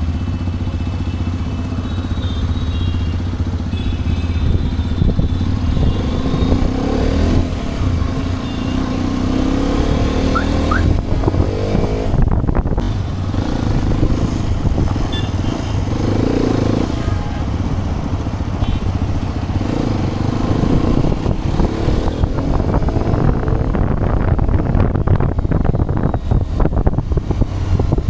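Hero XPulse 210's single-cylinder engine running, its revs rising and falling several times.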